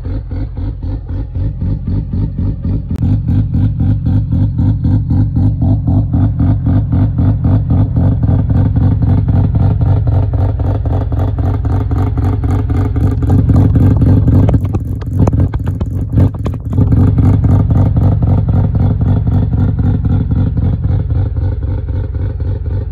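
Bridgeported 13B rotary engine of a first-generation Mazda RX-7 running through an ERC muffler: a loud, fast-pulsing "brap" exhaust note held near idle. It swells a little over the first several seconds, and its rhythm dips and breaks up briefly about two-thirds of the way through.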